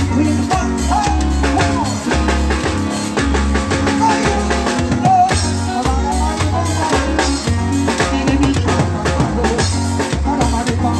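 Live Jamaican dead-yard band playing loud through a stacked speaker sound system, with a heavy pulsing bass, drums and a wavering pitched lead line over it.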